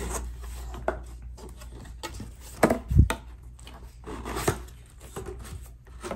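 Cardboard shipping box being opened by hand: flaps scraping and rubbing as they are folded back, with a soft thump about three seconds in and another knock with rustling about a second and a half later.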